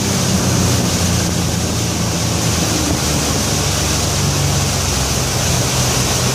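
Twin Yamaha 250 four-stroke outboards running at about 4,600 rpm, the boat doing about 28 knots: a steady engine hum under a loud, even rush of wind and water.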